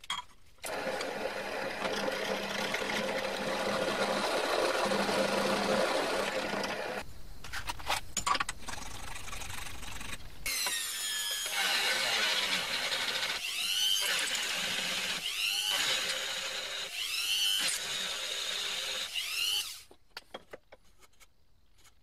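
Handheld electric rotary tool running, first steadily with a harsh grinding noise, then, after a short break with a few clicks, its pitch rising and falling again and again. It stops about twenty seconds in.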